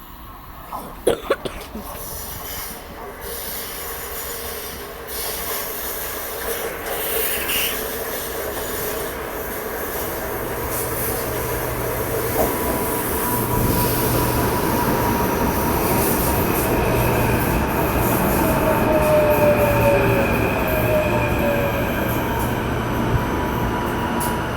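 A train running through the station, getting steadily louder as it draws near, with a few sharp knocks about a second in. In the second half, thin high steel-wheel squeal rings over the rolling noise.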